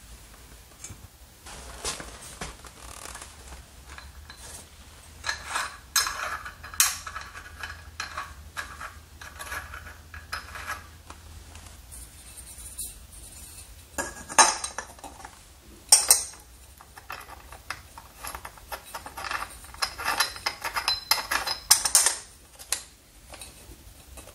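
Metal floor-lamp parts being handled and fitted together: irregular clinks, knocks and scraping as the pole sections, sockets and shades are screwed on, with several sharper clinks in the second half.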